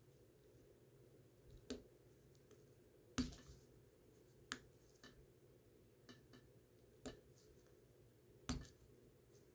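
Faint small clicks and taps of fingers and fingernails working on a bumper-automatic wristwatch, about seven scattered roughly a second apart, the loudest about three seconds in, over near silence.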